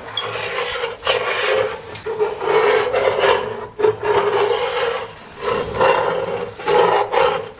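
Metal utensil scraping across the bottom of a cast-iron pot while stirring a thick roux, in repeated strokes about a second each. The bottom is scraped to keep the roux from sticking and burning.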